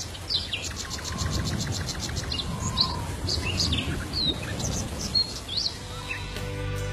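Small birds chirping: short, high chirps scattered throughout, with a fast ticking trill about half a second in, over a low, steady background hiss.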